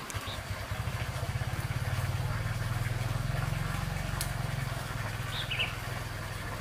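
A motor engine running with a steady low, pulsing rumble that swells about a second in and eases slightly near the end, with a few faint bird chirps.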